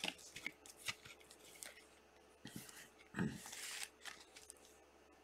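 A trading card and a clear plastic card holder being handled: small clicks and light rustling, with a louder knock and scraping hiss a little after three seconds in.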